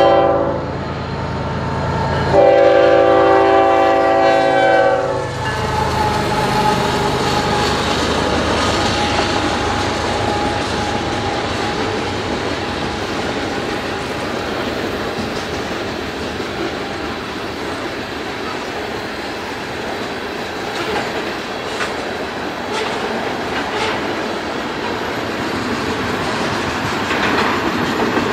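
Diesel freight locomotive's air horn sounding for a grade crossing: one blast ends just after the start and a longer blast of about three seconds follows a couple of seconds in. After that, a long string of tank cars rolls past: steady wheel-on-rail rumble with scattered clicks from the wheels over the rail joints.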